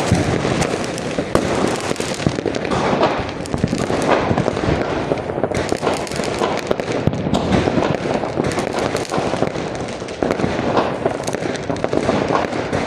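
Dense, continuous aerial fireworks: many shells bursting one over another with crackling, the bangs overlapping with no pause.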